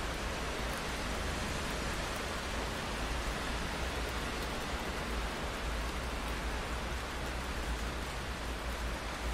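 Steady rain falling: an even, unbroken hiss with a low rumble underneath.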